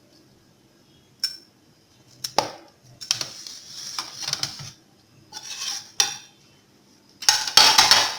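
A spoon tapping and scraping against kitchen dishes as spices are spooned in. There are a few sharp clinks, and longer scraping rattles about three seconds in and again near the end.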